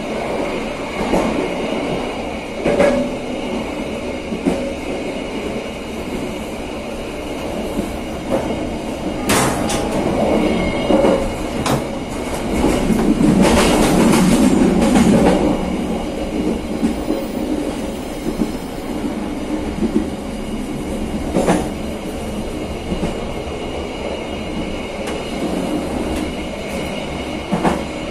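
Passenger train running along the line: a steady rumble of wheels on rail, with a few sharp knocks as the wheels cross rail joints. A louder, rougher stretch comes about halfway through.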